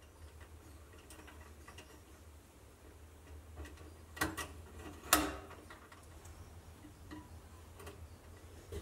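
Mice pattering and scratching on a galvanised-metal Victor Tin Cat live-catch mouse trap: faint scattered ticks, then two sharper metallic clicks about a second apart in the middle, as the teeter-totter entry tips and a mouse drops into the holding chamber.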